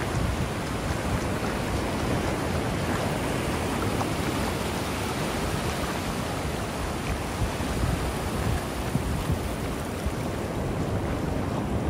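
Ocean surf breaking and washing up the shore in a steady wash of noise, with wind rumbling on the microphone.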